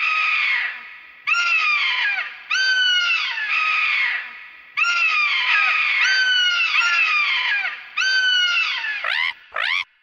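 Imagined pterodactyl calls, a creature sound effect: a run of about ten pitched calls, each dropping in pitch, starting abruptly, then two short rising calls near the end.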